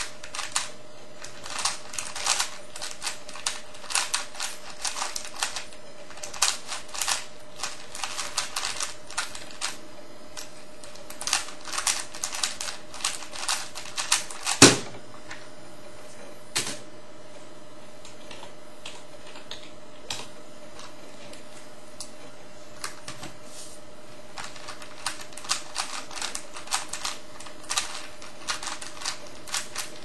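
3x3 Rubik's cube turned rapidly in a speedsolve: a dense run of quick plastic clicks and clacks for about fifteen seconds, ending in one loud thump as the solve ends. After a pause of several seconds the clicking of turns starts again near the end.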